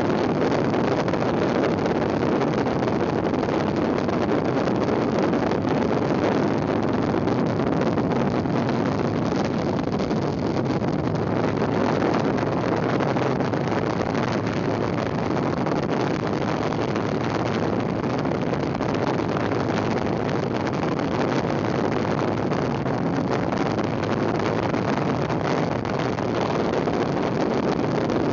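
Steady rushing of wind on the microphone mixed with the rumble of a folding kick scooter's small wheels rolling fast on asphalt, unchanging throughout.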